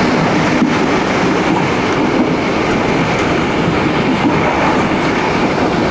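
Passenger train running at speed, heard from inside the carriage: a steady rumble of wheels on track with occasional faint clicks.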